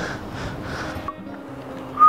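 Background music, fairly quiet, with faint held tones.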